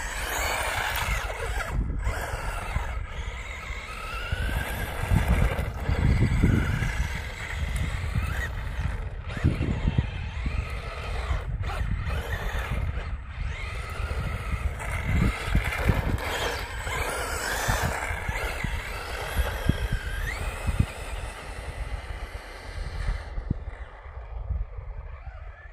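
Radio-controlled car's motor whining, rising and falling in pitch with the throttle as it is driven along the runway, fading near the end as it gets farther away. A low rumble of wind on the microphone runs under it.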